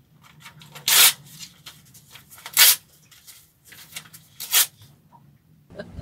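A paper sign being torn up by hand into shreds: three loud rips about a second and a half apart, with smaller crackles of paper between them.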